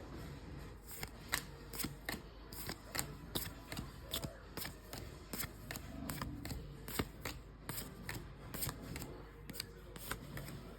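One Piece trading cards being handled and flipped through one by one: a run of irregular sharp card snaps, about two or three a second, over soft sliding and rustling.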